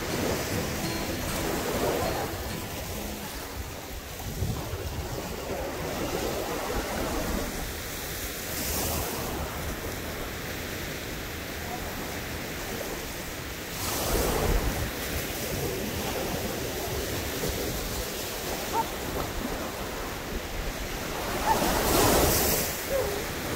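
Small surf breaking and washing up onto a sandy, shelly beach, swelling louder a few times, with the loudest crash near the end. Wind rumbles on the microphone underneath.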